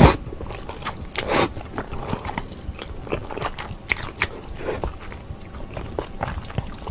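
A person slurping Odongtong instant ramen noodles off chopsticks, once right at the start and again about a second in, then chewing the noodles with many short clicks and smacks of the mouth.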